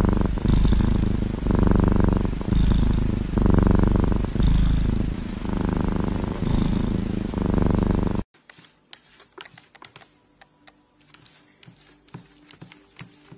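A kitten purring loudly close to the microphone, in swells of about a second each as it breathes in and out. The purring cuts off suddenly about eight seconds in, leaving faint scattered taps and clicks.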